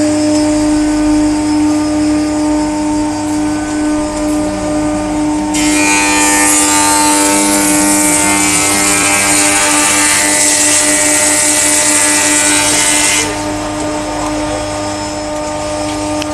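Double-sided wood planer running with a steady hum. About five seconds in, a loud high hiss of cutting joins it for some eight seconds as a board passes through the cutterheads, then cuts off suddenly while the machine keeps running.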